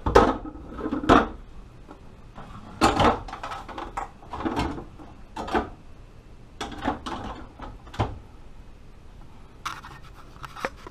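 Plastic freezer trays and bins being handled in a refrigerator freezer: a series of scattered sharp knocks and clatters, with a brief scraping slide near the end.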